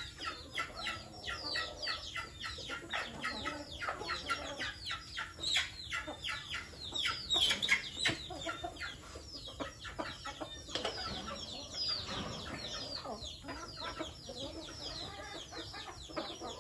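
A flock of chickens calling and clucking while they feed: a quick, busy run of short, high calls, each falling in pitch, several a second. The calls are thickest in the first two-thirds and thin out toward the end.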